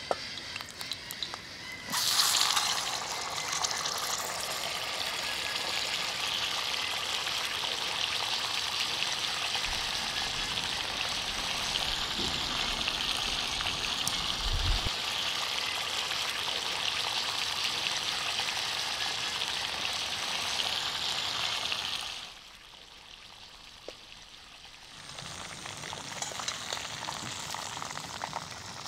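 Whole pressure-cooked duck sizzling in hot oil in a wok as it is fried. The sizzle starts suddenly and loudly about two seconds in as the duck goes into the oil, holds steady, drops off abruptly about three quarters of the way through, and comes back quieter near the end.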